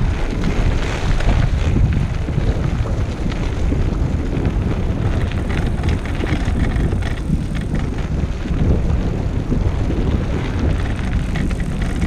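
Wind buffeting the action camera's microphone over the steady rumble of a recumbent trike's tyres rolling on a dirt trail, with scattered small crunches from the rough surface.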